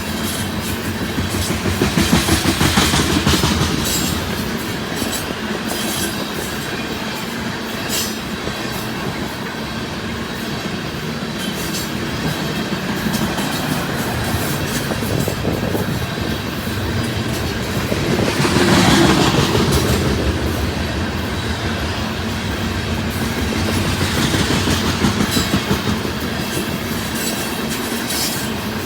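Loaded coal train's cars rolling past, their wheels clicking over the rail joints in a steady clickety-clack, with louder swells about two seconds in, just past the middle and again near the end.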